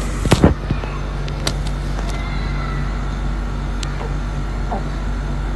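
Steady low hum under a few sharp knocks and clicks, the loudest cluster about half a second in: a phone being handled close to its microphone.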